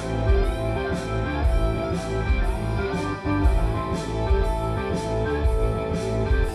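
Music with a plucked-guitar part, heavy bass and a steady drum beat of about two hits a second, played through a hi-fi loudspeaker and picked up by a microphone beside the speaker rather than in front of it, so the bass and room boom stand out.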